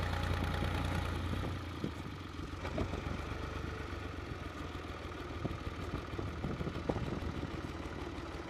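Farm tractor engine running, its strong low hum dropping back about a second and a half in and then running lower, with scattered short knocks and clatter.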